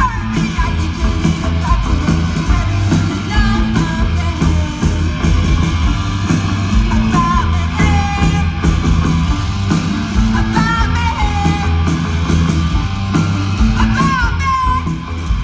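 Live punk rock band playing: electric guitar, bass and drums, with a woman singing in short lines over them.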